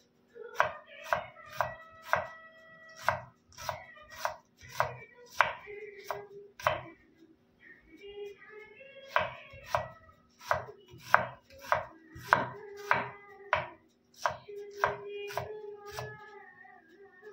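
Kitchen knife slicing a red onion on a wooden cutting board: sharp knocks of the blade through the onion onto the board, about two a second in runs, with a couple of short pauses.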